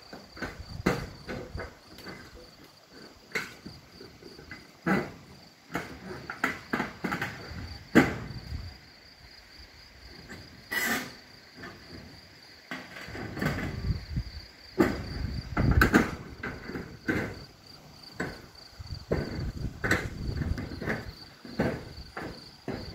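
Crickets chirring steadily in a high, unbroken band. Gusts of wind buffet the microphone, and scattered sharp clicks and knocks come through, the loudest about eight seconds in.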